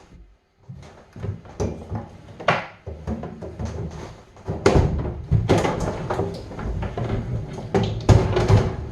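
Irregular knocks, clacks and rustling of packaging and parts being handled while a new over-the-range microwave is unpacked, with two louder thumps, about halfway through and near the end.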